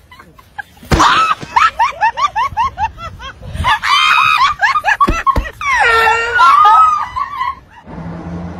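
Rapid, high-pitched laughter in quick repeated bursts, then shrieks and a long wavering yell, with sharp knocks about a second in and about five seconds in.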